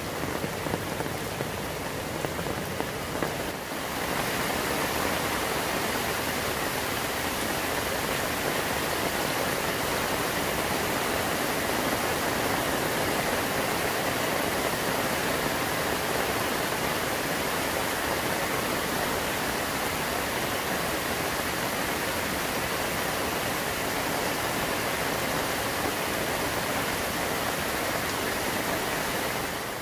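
Rain falling with a few separate drops standing out. About four seconds in it changes to a steady, dense rush of a heavy downpour, with rain-fed waterfalls streaming down a rock cliff.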